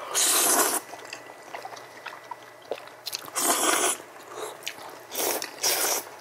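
Loud slurps of saucy udon noodles from a spicy stew: one near the start, one about halfway, and two in quick succession near the end, with quiet chewing between.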